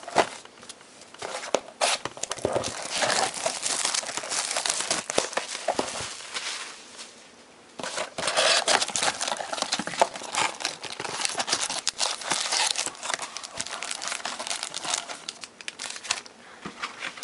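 Crinkling and tearing of plastic and foil wrapping as a sealed trading card box is opened and its foil card packs are handled, with a short lull about seven seconds in.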